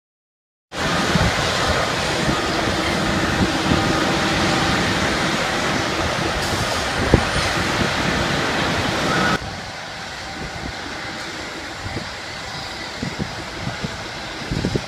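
Heavy trucks and concrete-pouring machinery running with a loud, steady engine noise. About nine seconds in it cuts abruptly to a quieter site background with scattered low thumps.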